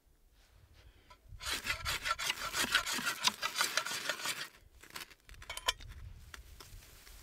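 A ferrocerium rod is scraped hard and fast for about three seconds, a harsh rasping that throws sparks into a dry-grass tinder bundle. It is followed by a few softer clicks and crackles as the tinder catches.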